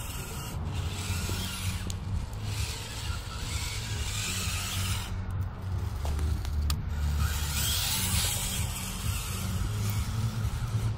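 Small electric motor and gear train of a 1/24-scale Losi Micro rock crawler running as it drives through mud towing a trailer, under a steady low rumble.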